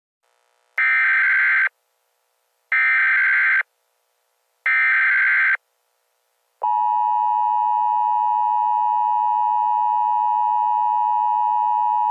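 Emergency Alert System SAME header: three bursts of warbling digital data tone, each just under a second long and about two seconds apart, followed about six and a half seconds in by the steady two-tone EAS attention signal.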